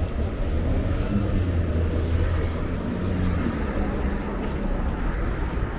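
Road traffic on a busy city street: a steady low hum of vehicle engines.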